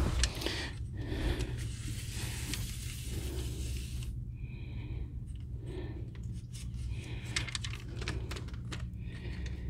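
John Deere 3038e's three-cylinder diesel engine idling steadily as a low hum, with scattered clicks and rustles of handling close to the microphone.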